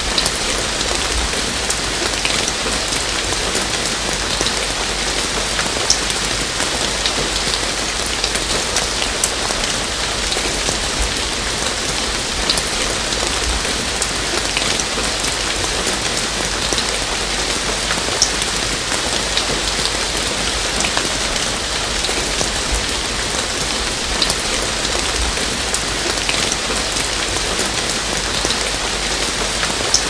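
Steady rain falling through trees onto leaves, an even hiss of rainfall with single louder drips standing out now and then.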